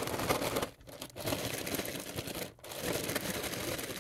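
Zip-top plastic bag crinkling as it is shaken hard, with oiled, seasoned radish slices tumbling inside. The shaking breaks off briefly twice.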